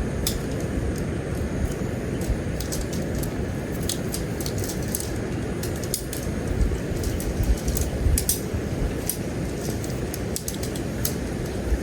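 Steady rumble of a car on the move, heard from inside the cabin, with many small irregular clicks and rattles over it.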